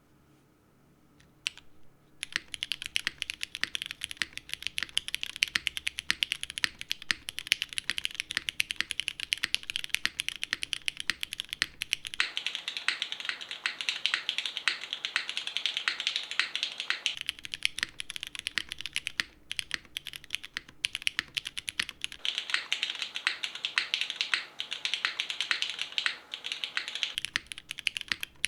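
Fast, continuous typing on a Neo75 CU mechanical keyboard with a copper bottom case, a dense stream of key clacks. It begins about two seconds in, after a single stray click, and keeps going with only a few brief pauses.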